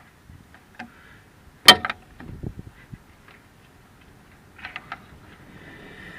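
Sharp clicks and knocks of hand tools on metal and plastic while a stuck radiator hose is worked loose, with one loud crack about a second and a half in and a quick run of lighter clicks near the end.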